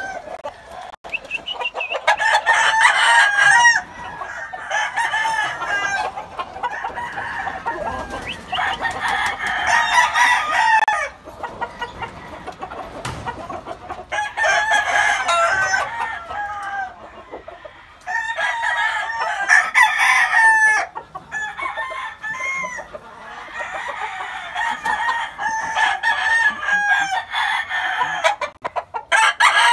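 Game roosters crowing again and again, about half a dozen long crows of two to three seconds each, with quieter clucking between them.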